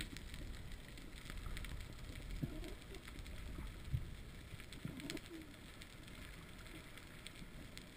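Underwater ambience heard through a waterproof camera housing: a faint low rumble of water with scattered faint clicks. Two brief low moaning tones sound about two and a half and five seconds in, and there is a soft thump just before four seconds.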